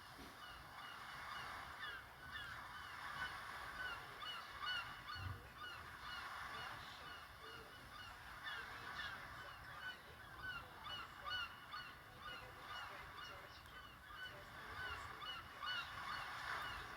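Many short bird chirps, several a second, over a steady hiss: a birdsong-style ringtone playing through the small speaker of a Samsung Galaxy Star GT-S5282 phone.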